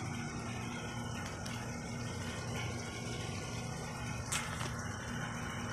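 Steady rain falling, an even hiss with a low steady rumble underneath, and a single sharp click about four seconds in.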